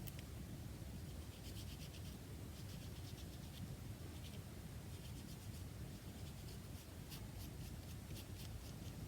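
Faint scratchy rubbing of a tool worked across a card tag, in short runs of quick strokes.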